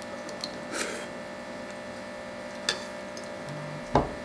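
A person slurping a mouthful of noodles, then chewing quietly over a steady electrical hum, with a short dull thump near the end.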